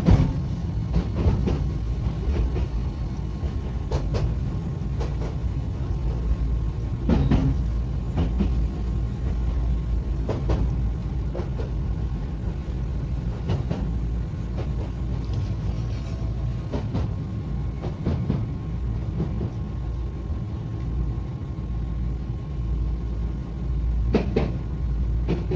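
Tokyu Setagaya Line 300 series light-rail car running on its line, heard from inside: a steady low rumble with a faint steady motor hum, and sharp clacks every few seconds from the wheels on the track.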